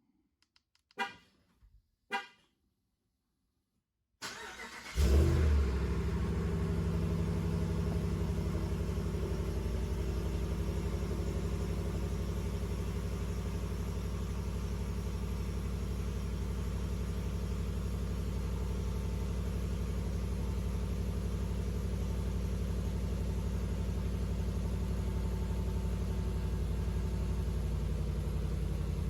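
Cold start of a 2019 Ram Rebel pickup on its stock exhaust. After two short sounds about one and two seconds in, the starter cranks briefly about four seconds in. The engine catches with a loud flare, then settles into a steady idle.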